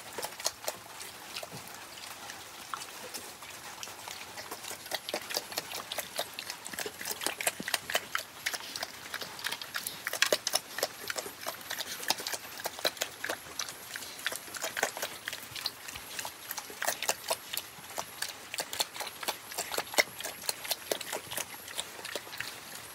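Pigs eating wet mash from a feed bowl, chewing and smacking in quick, irregular clicks.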